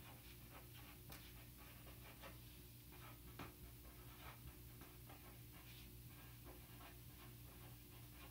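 Faint pen scratching on lined notebook paper as words are handwritten: many short, irregular strokes. A low, steady hum runs underneath.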